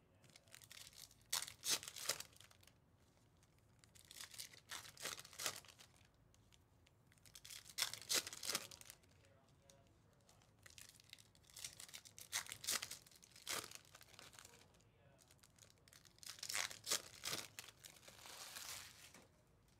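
Foil trading-card pack wrappers being torn open and crinkled, in short bursts every few seconds.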